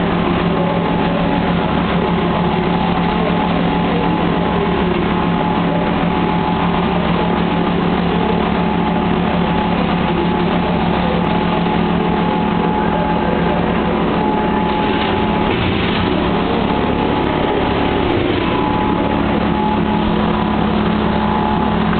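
A motor-driven machine running steadily, a constant hum with a few fixed tones and no change in level.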